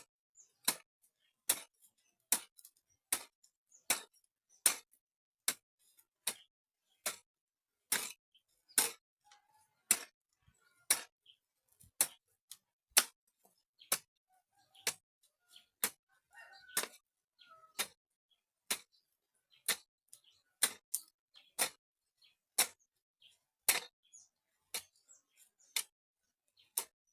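A digging tool chopping into hard earth with sharp, even strokes, a little more than one a second, as soil is broken up for mixing into mud.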